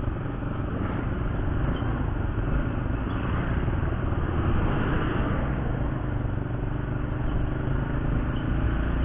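Steady engine hum, road noise and wind rumble from a motorcycle on the move, swelling briefly about halfway through as a large bus passes close by.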